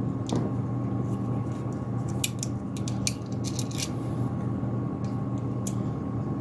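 Light clicks and taps of hands working small computer hardware, taking an M.2 SSD out of an enclosure, with a run of quick clicks about two to four seconds in, over a steady low hum.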